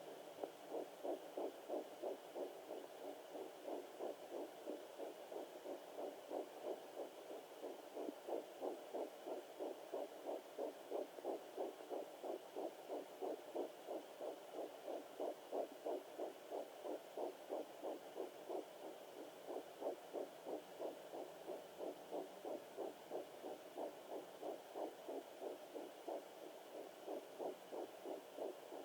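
Fetal heartbeat at 9 weeks picked up by a handheld fetal doppler: a fast, even train of pulses that continues without a break.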